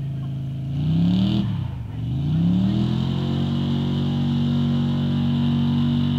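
Chevy pickup truck's engine revving hard while driving through mud: the revs climb about a second in, drop briefly, climb again, then hold steady at high revs.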